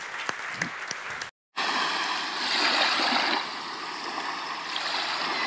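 The last scattered claps of applause, cut off suddenly, then a steady rushing of water like surging waves, swelling and easing, laid over the outro.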